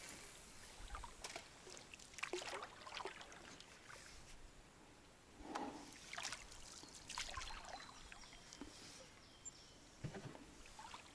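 A small boat being paddled through shallow water: a few irregular, quiet strokes splashing, with water dripping and trickling in between.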